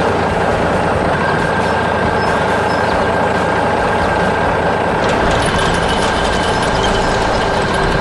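Heavy construction-machine engines running steadily, as a sound effect for the animated machines. Light rattling clicks join in from about five seconds in.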